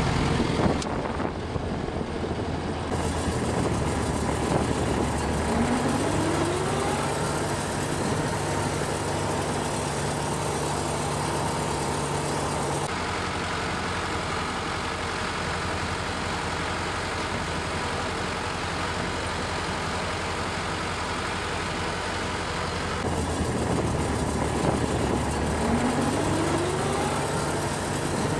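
Small farm tractor's diesel engine running steadily as the tractor drives across a field, its note shifting a few times. A short rising whine sounds twice, about six seconds in and near the end.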